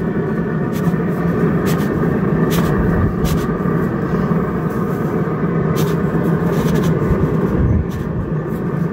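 A steady mechanical hum, with scattered light clicks and taps as a pizza peel is slid under a pizza on a pellet grill's metal grates and the pizza is lifted off.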